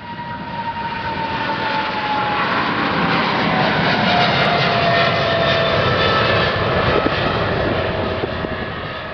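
Jet airliner passing low overhead: a roar that swells and eases off again, with several whining engine tones sliding slowly down in pitch as it goes by.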